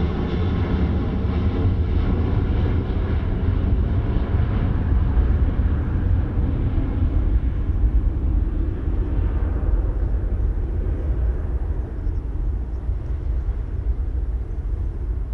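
Jet airliner's engines climbing away after takeoff: a deep, steady rumble, with the higher hiss over it fading over the first ten seconds as the aircraft recedes.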